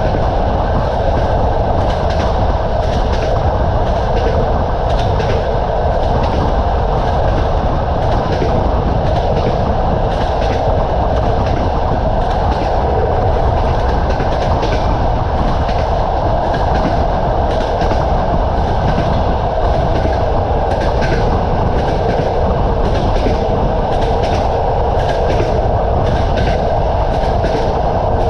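Moving train: a steady rumble of wheels on the track, with regular clickety-clack as the wheels cross rail joints.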